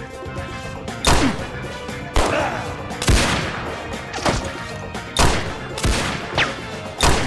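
Film gunfight sound effects: about eight single gunshots, roughly one a second, several followed by a falling whine, over background music.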